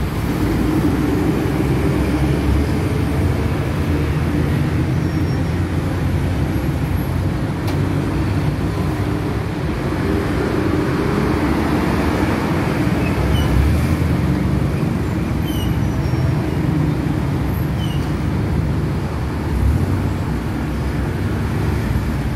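Busy city street traffic: city buses and cars moving slowly close by, a steady low engine rumble under a hiss of traffic. A few short high chirps come in the second half.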